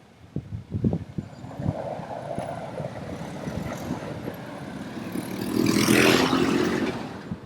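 A motor vehicle passing close by on the street, building to its loudest about six seconds in and then fading. Low gusts of wind buffet the microphone in the first couple of seconds.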